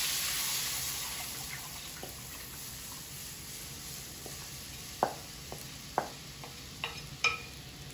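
Gram-flour batter hitting hot ghee in a kadhai: a sizzle that fades away over the first few seconds as the batter cools the fat. Near the end, a few sharp taps of the wooden spoon and bowl as the last of the batter is emptied into the pan.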